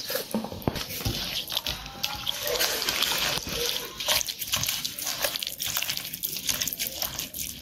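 A hand squelching and sloshing a wet mix of eggs, oil, sugar and almonds in a glazed clay bowl, with a busy run of small wet clicks and splashes.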